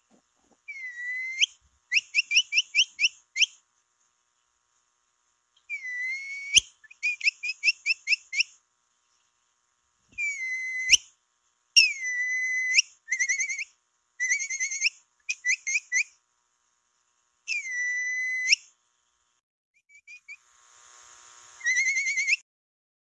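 Capybara whistling call used as a lure: phrases of high whistles, some in quick runs of short rising chirps (about five a second), others held for about a second and lifting at the end, with silent gaps between phrases.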